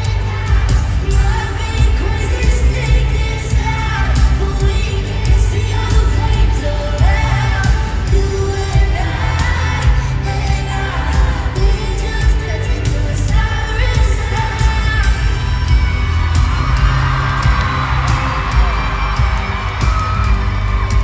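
Live pop concert heard from the audience: a singer's voice over a loud band with heavy bass and a steady drum beat.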